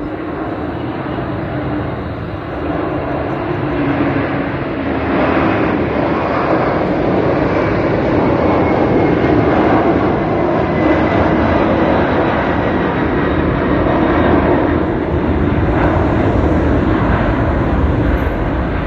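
Heavy wide-body jet airliner taking off and climbing out: loud jet engine noise that builds over the first few seconds and then holds steady, with a faint high whine running through it partway.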